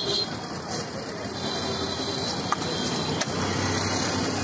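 Steady street traffic noise, with two sharp clicks near the middle.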